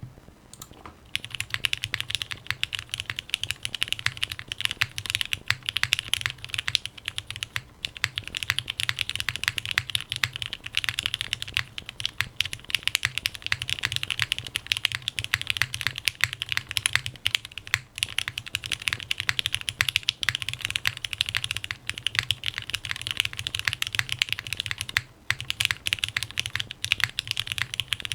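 Steady, fast typing on a top-mount Tomo mechanical keyboard with an aluminium plate, lubed and filmed Cherry MX Black Hyperglide linear switches and GMK ABS Cherry-profile keycaps. The keystrokes begin about a second in and run densely, with a brief pause near the end.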